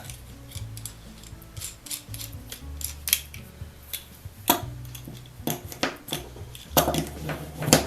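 Clicks and light metallic rattling from an antique Goodell Brothers ratchet screwdriver being handled, with a few sharper clicks standing out, over quiet background music.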